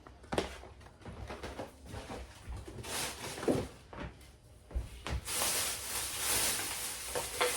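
Groceries being handled and put away: scattered knocks and clunks of items, packages and cupboard or fridge parts, then from about five seconds in a steady hissing rustle, like packaging being handled.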